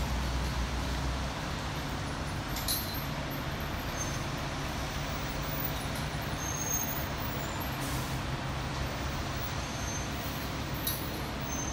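Diesel engine of a 2017 Spartan Gladiator fire engine running steadily at low speed as the truck pulls out of its station, over street traffic noise, with a few faint clicks.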